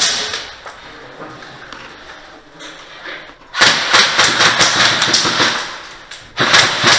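Airsoft guns firing rapid full-auto bursts in a building: a first long burst about halfway through that fades out, and a second starting near the end, after a few quiet seconds.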